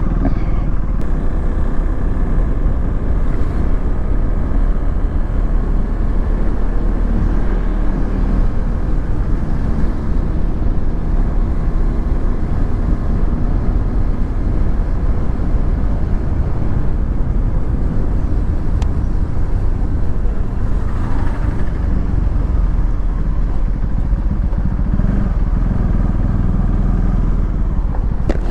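Motorcycle engine running steadily while riding on the road, with a heavy low rumble of road and wind noise.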